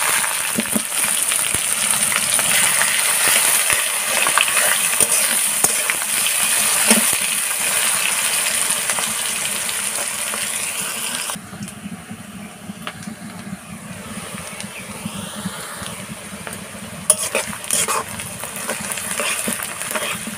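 Sliced onions sizzling as they fry in hot mustard oil in a karahi. The sizzle is loud at first and becomes quieter a little past halfway; near the end a metal spatula clicks and scrapes against the pan as the onions are stirred.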